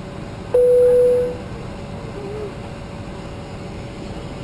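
Airliner cabin chime: a single clear tone about half a second in, fading out after about a second, over the steady hum of the cabin air system.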